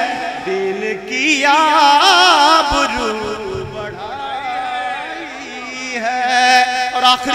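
A man's voice singing a naat, drawing the line out in a wavering, ornamented melody with long held notes, without clear words.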